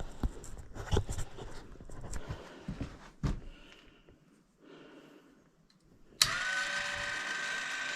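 A few seconds of knocks and clatter, then a machine motor starts abruptly about six seconds in and runs on at a steady pitch.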